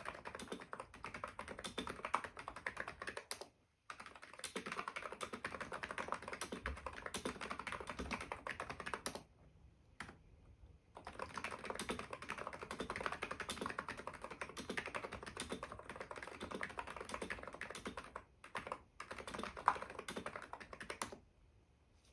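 Stock ABKO KN01 electro-capacitive keyboard being typed on in fast, continuous runs of keystrokes. The typing pauses briefly twice, thins to scattered strokes near the end, then stops.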